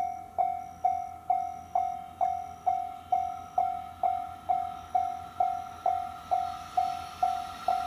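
Japanese level-crossing warning bell ringing, a clear ding about twice a second, each ding fading before the next. Near the end the noise of the approaching M250 Super Rail Cargo electric freight train begins to swell under it.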